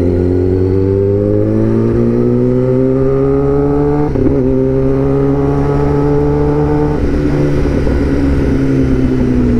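Sport motorcycle engine pulling steadily in gear, its pitch rising slowly, with a brief break about four seconds in. About seven seconds in the throttle is rolled off and the engine note falls steadily.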